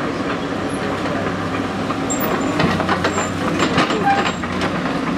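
Caterpillar 318BL hydraulic excavator's diesel engine running steadily as the machine tracks forward, with irregular metallic clanks from its steel tracks.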